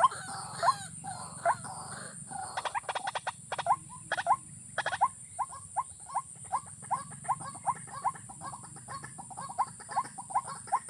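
An animal giving short rising calls over and over, about two to three a second, with a run of quick clicks or rattles partway through.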